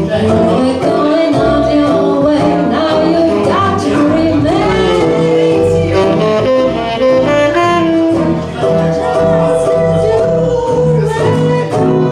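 Live jazz: a saxophone plays the melody, moving through phrases and holding a long note about two-thirds of the way in. Double bass, ukulele and guitar accompany it.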